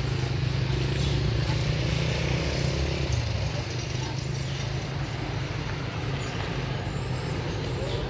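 A motor engine running steadily with a low hum over a constant hiss; the hum weakens about three and a half seconds in.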